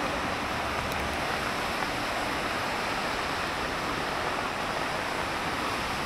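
Rain falling on wet paving stones and the street, a steady even hiss.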